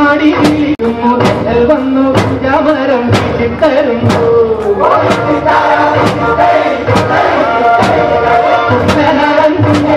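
Kerala boat-race song (vanchipattu): voices singing over a steady percussive beat, about two beats a second.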